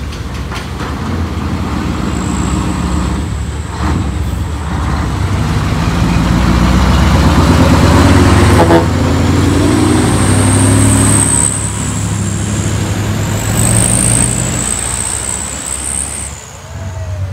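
Heavy truck's diesel engine pulling past, growing louder toward the middle and then easing off, with a thin high whine over it in the second half.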